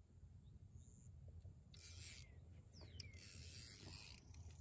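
Fly reel's click-pawl drag rasping faintly as line is pulled off it, in two pulls: a short one about two seconds in and a longer one about three seconds in.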